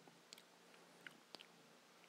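Near silence, with a few faint mouth clicks and lip smacks from tasting a spoonful of wasabi dressing.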